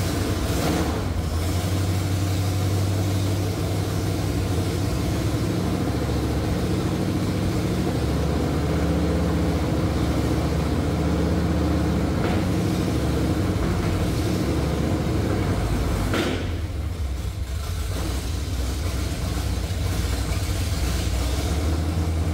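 Engine of a C50 truck build running with loud open exhaust through uncapped headers. About three-quarters of the way through the sound dips briefly, then carries on.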